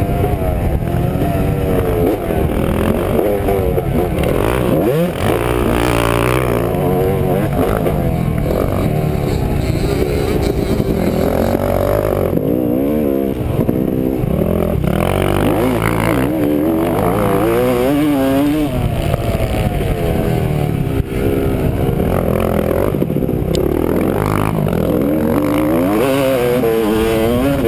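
Dirt bike engine revving up and dropping off over and over as it is ridden hard around a motocross track, the pitch climbing and falling every second or two.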